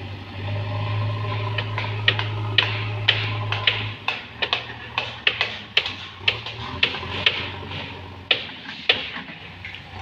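JCB backhoe loader's diesel engine running with a steady low drone that eases off about four seconds in, with many short sharp ticks scattered over it.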